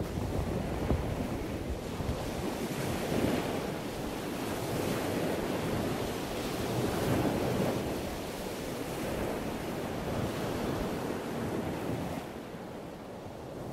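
Water lapping at a dock with wind buffeting the microphone: a steady rush that swells and ebbs every couple of seconds and eases off a little near the end.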